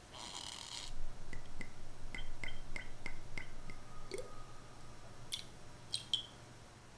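Amaretto liqueur poured from a bottle into a silicone measuring spoon: a brief splash of pouring, then a run of small, evenly spaced drips, about three or four a second. Near the end a few single drips fall from the spoon into the coffee syrup in a glass bowl.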